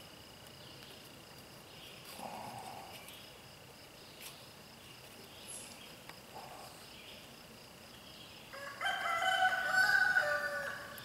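A rooster crows once, a single call of about two seconds starting near the end and the loudest sound here. Before it there is only a quiet background with a faint steady high whine.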